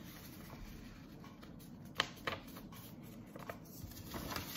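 Paper being handled and folded: soft rustling, with two sharp crackles close together about two seconds in.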